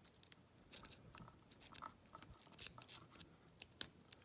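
A wave rake being scraped in and out of a Yale padlock's keyway against the pins under light tension: faint, irregular small metallic clicks and scrapes.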